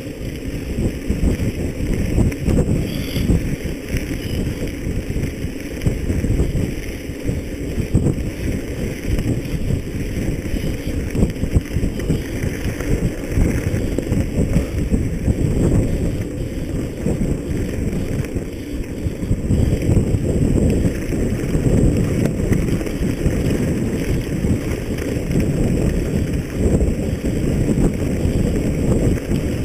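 Wind buffeting the microphone: a loud, continuous rushing rumble that swells and eases in gusts.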